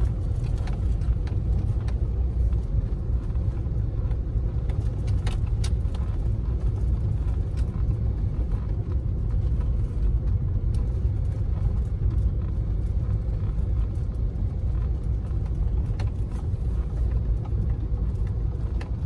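Car cabin noise while driving slowly: a steady low rumble from the engine and tyres, with a few faint clicks and ticks here and there.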